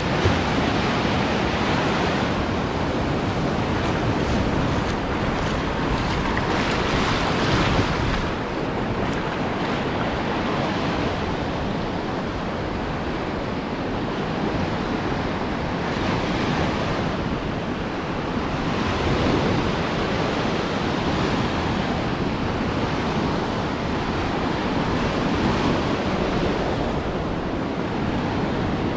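Ocean surf breaking on a beach: a steady wash of water that swells each time a wave comes in, every several seconds, with wind.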